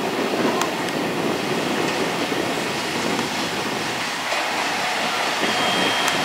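An EF64 electric locomotive and its container freight wagons rolling through a station: steady rumble of wheels on rail, with a few sharp clicks as wheels cross the rail joints. A faint high whine comes in near the end.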